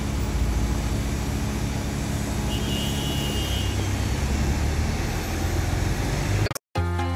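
Steady street traffic noise, a low rumble of passing road vehicles. Near the end it cuts off abruptly and electronic music starts.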